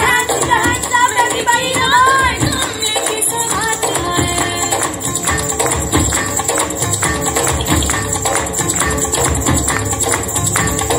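Recorded Kashmiri dance song playing loud: a singing voice over the music for the first few seconds, then a fast, steady beat with jingling, tambourine-like percussion.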